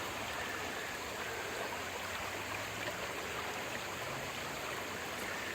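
Creek water running with a steady, even rush.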